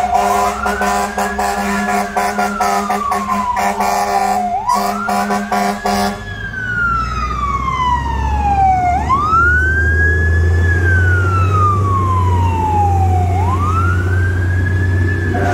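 Fire truck siren wailing in repeated sweeps, each a quick rise followed by a slow fall, about every four and a half seconds. For roughly the first six seconds a steady, blaring horn tone sounds over it. After that the low rumble of the ladder truck's engine grows as it passes.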